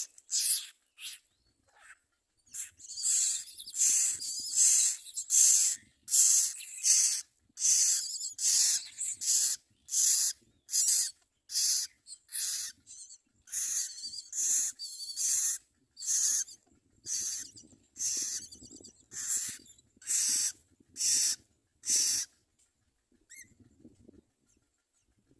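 Common myna nestlings begging with raspy, hissing calls, repeated about one and a half times a second and stopping near the end.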